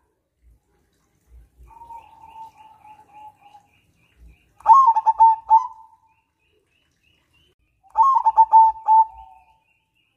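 Zebra dove (perkutut) cooing: a quieter drawn-out trilling coo about two seconds in, then two loud coo phrases about three seconds apart, each a few quick clipped notes running into a held note.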